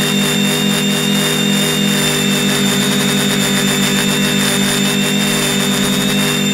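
A multirotor drone's electric motors and propellers running steadily, heard close up from its own onboard camera. A low hum beats and throbs as the propellers run at slightly different speeds, with a thin high electric whine over it.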